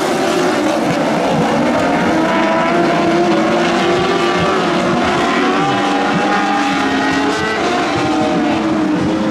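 Several Lightning Sprint mini sprint car engines running together on a dirt oval, their pitches rising and falling and overlapping as the cars lap.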